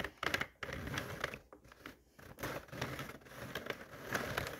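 Sentro plastic circular knitting machine being hand-cranked: its plastic needles click and clatter in a dense rattle, with a short lull near the middle.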